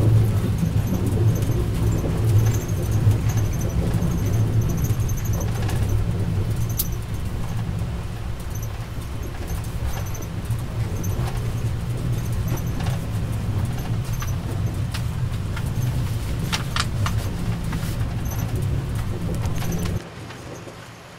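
Steady low rumble of a passenger coach running on the rails, heard inside the car, with scattered clicks and rattles from the wheels and car body. Near the end the rumble drops off suddenly to a much quieter level.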